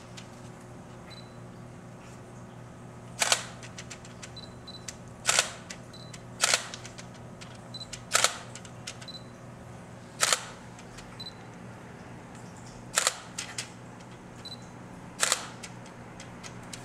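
Still camera taking photos: about seven sharp shutter clicks at irregular intervals of one to three seconds, with short high beeps of focus confirmation in between, over a steady low hum.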